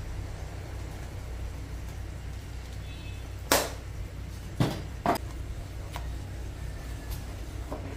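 A wooden spoon knocking against a nonstick wok as it stirs parmesan powder into a honey-soy glaze, with several sharp knocks from about halfway through. A steady low hum runs underneath.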